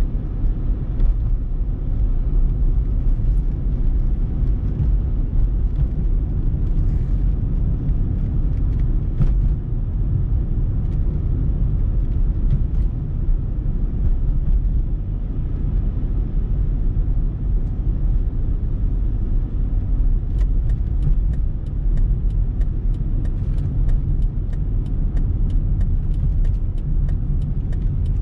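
Steady low rumble of road and engine noise inside a moving car's cabin. From about twenty seconds in, the turn signal clicks at an even pace as the car nears an intersection.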